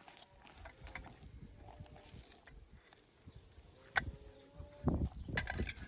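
Stones knocking against each other as they are handled and set in a stone wall: a single sharp knock about four seconds in, then a quick run of clacks near the end.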